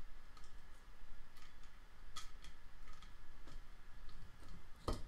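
Scattered light metallic clicks of a timing chain on a 2007 Audi A4 2.0T cylinder head, handled by hand and seated onto the cam adjuster and sprocket. The sharpest click comes near the end.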